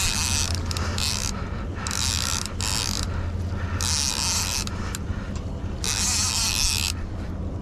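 Fishing reel being worked in bursts of about a second with short pauses as a hooked striped bass is fought, over a steady low hum from the boat's engine.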